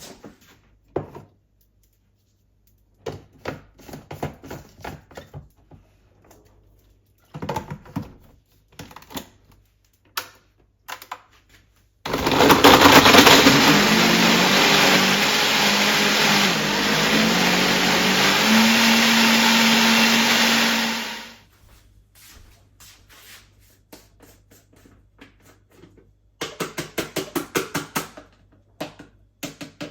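Small electric kitchen appliance motor, blender-like, running loudly for about nine seconds, its pitch stepping up as it speeds up and then holding steady, before it cuts off. Kitchen clicks and knocks come before it and a quick run of light clicks follows near the end.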